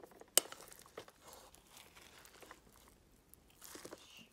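Plastic rice paddle stirring and scooping cooked multigrain brown rice in a rice cooker's inner pot: faint, scattered soft crunching and scraping, a little busier near the end. A single sharp click about half a second in.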